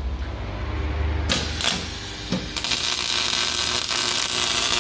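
MIG welder arc crackling on steel rectangular tubing: two short strikes about a second and a half in, then a steady crackle lasting about three seconds.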